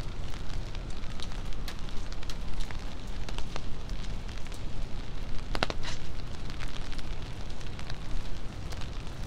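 Rain pattering, with many irregular drop ticks over a steady hiss and a low city rumble; a louder cluster of ticks comes about five and a half seconds in.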